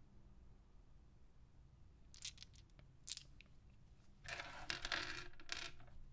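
Hard plastic polyhedral dice clicking and clattering as they are handled and set down on a wooden desk: a few separate clicks, then a denser clatter about four seconds in.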